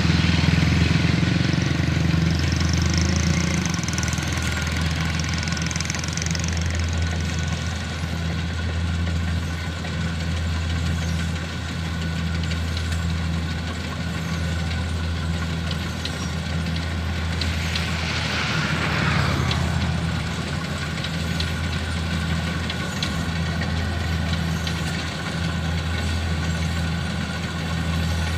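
Kubota DC-60 combine harvester's diesel engine running steadily with a deep, slightly pulsing drone. A brief rushing noise rises over it about two-thirds of the way through.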